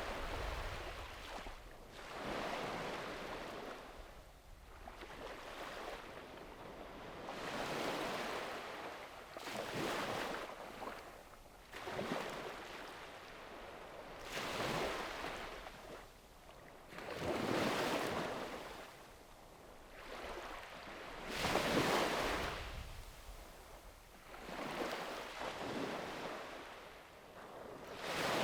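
Small waves breaking and washing up a sandy beach, one after another every few seconds, each swell of surf hiss rising and falling away, the strongest near the middle and about three quarters of the way through.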